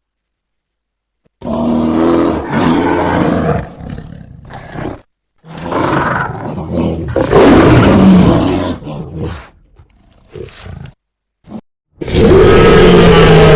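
Cartoon dinosaur roar sound effects: two loud, growling roars, each a couple of seconds long, followed by a few short faint growls. Near the end a new loud, steady sound begins.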